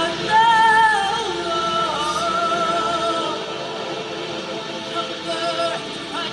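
Music with singing: held vocal notes with a slight waver, gliding from one note to the next. Louder in the first second, then steadier.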